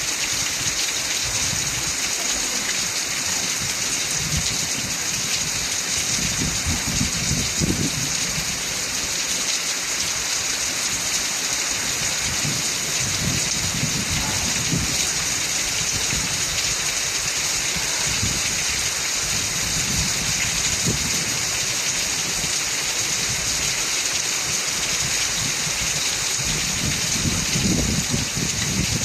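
Heavy rain falling steadily in a loud, even hiss, with low rumbles swelling up now and then, around a quarter of the way in, about halfway, and near the end.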